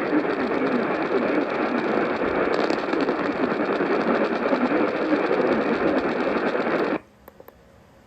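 AM radio receiver tuned to 650 AM, playing heavy static with faint audio buried in it, which cuts off suddenly about seven seconds in.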